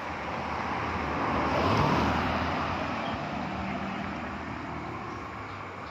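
A motor vehicle passing by on the road: its engine and tyre noise swell to the loudest point about two seconds in, then fade away.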